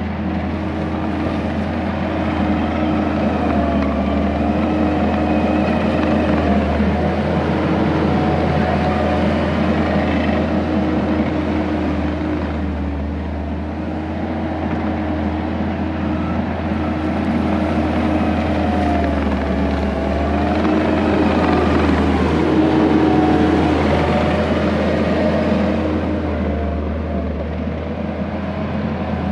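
Skid steer's diesel engine running at working revs while it digs and pushes dirt with a 4-in-1 bucket, its note rising and falling with the load and swelling a couple of times.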